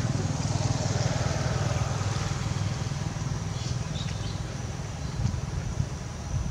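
A motor vehicle's engine running steadily, loudest in the first couple of seconds and easing off after, with two short knocks near the end.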